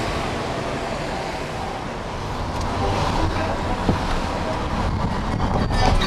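Road traffic noise: cars going by with a steady rush, a little louder in the second half.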